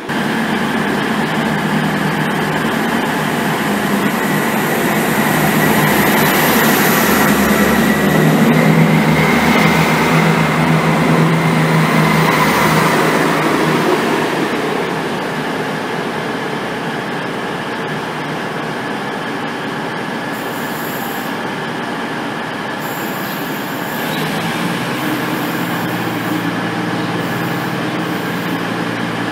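Diesel multiple unit in South West Trains livery pulling out close past the platform, its underfloor diesel engines growing louder to a peak about halfway through and then easing off as it draws away. Near the end a steadier, quieter diesel hum takes over from a CrossCountry Voyager.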